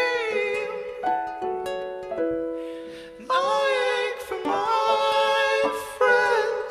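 Live acoustic song: a man sings over a picked ukulele. Sung phrases with held, wavering notes alternate with gaps where only the plucked notes ring.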